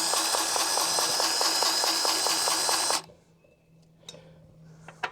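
Powered grease gun running, its pump pulsing about seven times a second as it pushes grease into a mower deck spindle cup, then cutting off suddenly about three seconds in. A few faint clicks follow.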